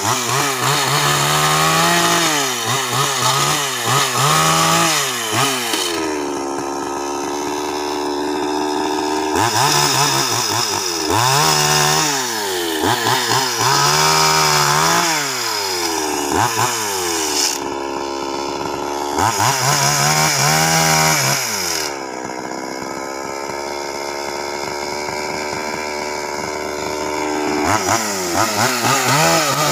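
Two-stroke petrol chainsaw revving up and falling back over and over as it cuts through the branches of a felled tree, with a couple of longer stretches of steadier, quieter running.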